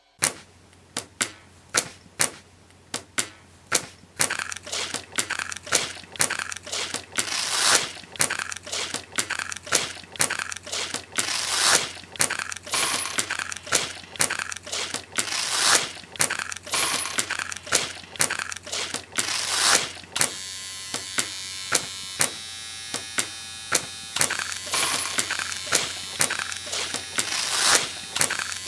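Repeated sharp clicks and clattering knocks, several a second and uneven in loudness, over a steady low hum. For a few seconds past the middle they give way to a steadier buzzing noise.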